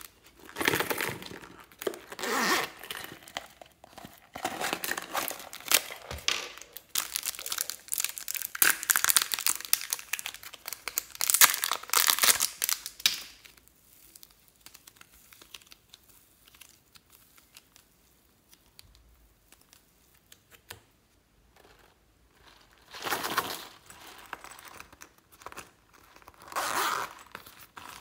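Hands handling and opening a small purse: a long stretch of crinkling, rustling and tearing-like noise full of small clicks. About halfway it turns quiet, with only faint ticks while purple clay is pulled and kneaded, and near the end come two more short crinkly bursts as a second purse is handled.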